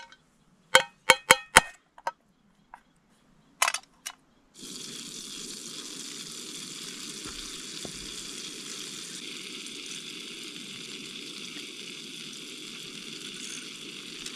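A few sharp clicks. Then, about four and a half seconds in, a steady sizzling hiss starts suddenly and holds level: butter frying in a pan on a backpacking gas-canister stove, with the burner's own hiss.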